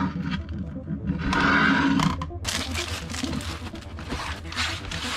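A rough, roar-like rasp lasting about a second, then a crackling rustle of plastic film as a sheet of film-backed prepreg carbon fibre is unrolled and smoothed by hand.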